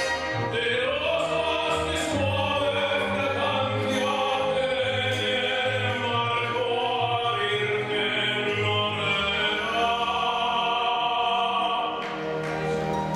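Classical orchestral music with operatic singing in long held notes, played loud as the dance music for a paso doble show routine; it eases a little softer near the end.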